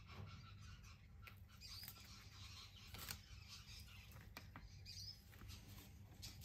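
Near silence, with faint scattered clicks and a couple of small high squeaks from plastic paint cups being handled while acrylic paint is poured onto a canvas.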